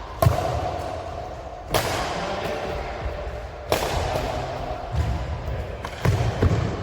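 Repeated sharp pops, about one every two seconds, each followed by a rushing hiss that slowly dies away.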